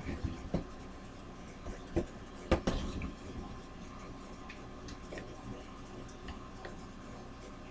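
A few light knocks and taps as a picture frame is handled and moved, the sharpest about two and a half seconds in, over a faint steady hum.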